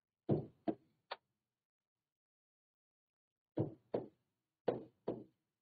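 Pen knocking against an interactive whiteboard screen while numbers and commas are written: short hard taps, three in quick succession at the start, then four more after a pause of about two seconds.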